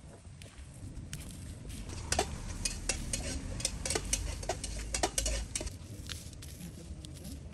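Hand squeezing and mixing chopped vegetables with flour and sauce on a stainless steel plate: wet rubbing, with quick clicks against the metal that come thickest in the middle.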